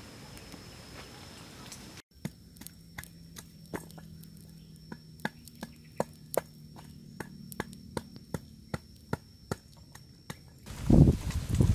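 Small wood campfire crackling, with sharp irregular pops about two or three a second over a faint steady high whine. Near the end, loud low thuds and rumbling take over.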